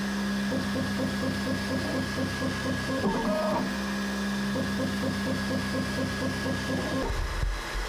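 Bambu Lab X1 Carbon 3D printer's stepper motors running its automatic pre-print routine: a steady motor hum with a quick repeating stepping pattern. A brief higher whine comes about three seconds in, and the movement stops about seven seconds in, leaving a low rumble.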